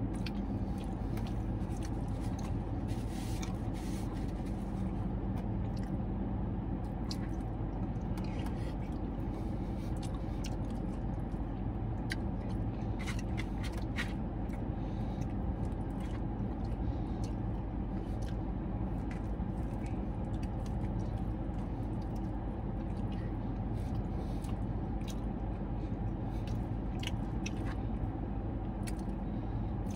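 Chewing, with a fork scraping and clicking now and then in a plastic KFC bowl of mashed potatoes, over a steady low hum inside the car.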